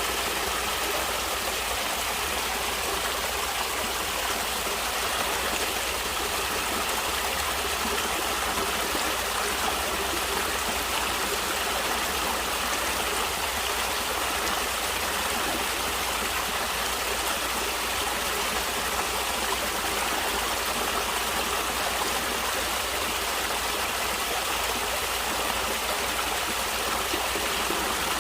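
Natural water flowing steadily in an even, unbroken rush.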